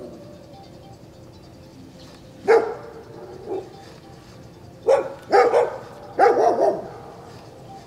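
Short animal calls in a loose series of about six, the first about two and a half seconds in and the rest bunched together near the middle.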